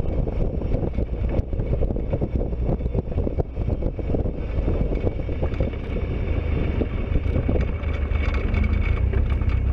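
Engine rumble from a moving vehicle, with wind buffeting the microphone; the low rumble grows stronger near the end.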